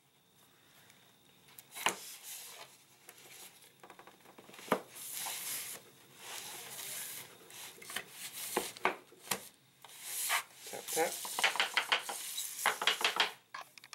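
Mannington Restoration Collection laminate planks rubbing and scraping on foam underlayment as they are angled and pressed into place, with sharp clicks and knocks, several in quick succession near the end.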